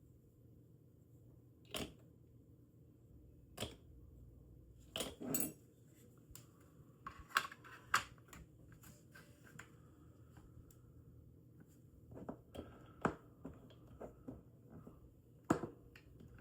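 Scattered small clicks and taps of hands handling and fitting small die-cast metal and plastic model parts while a piece is glued in, over a faint steady hum.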